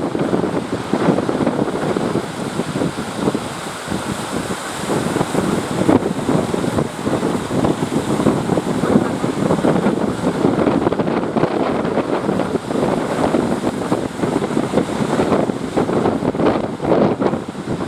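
Strong wind buffeting the microphone, with the wash of waves and surf underneath.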